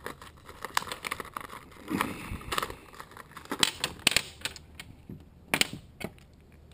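Irregular plastic clicks and clatter of batteries being fitted into a toy slot-car set's hand controller, with a couple of louder knocks in the second half.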